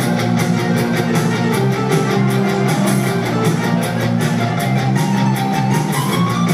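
Live rock band playing at full volume: electric guitar, bass guitar and drums over a steady driving beat.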